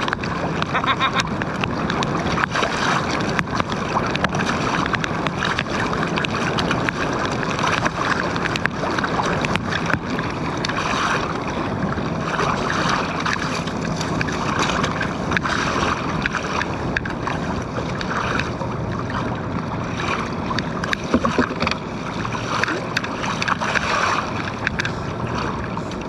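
Wind rushing over the microphone and choppy water slapping and splashing against a kayak hull, a steady noise with uneven swells.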